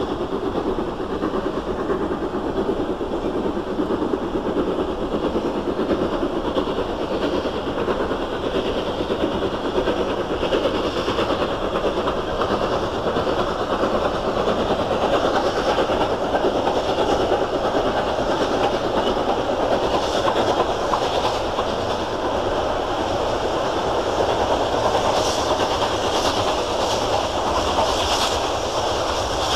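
V2 class 2-6-2 steam locomotive hauling a freight train up a steep gradient: a continuous heavy rumble of the working engine, with the wagons clattering over the rail joints.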